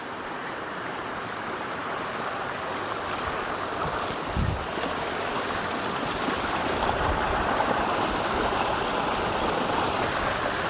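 Steady rush of a waterfall, the falling water growing a little louder partway through, with a low thump about four seconds in.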